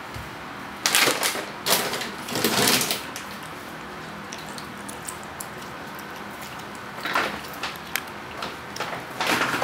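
A cat eating raw chicken from an enamel plate: a few short noisy bouts of chewing and pulling at the meat about a second in, then quiet, then more from about seven seconds in.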